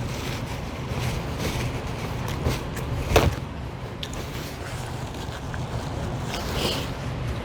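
Eating sounds, with small clicks from chewing and handling food, over a steady low hum. One sharp knock comes about three seconds in.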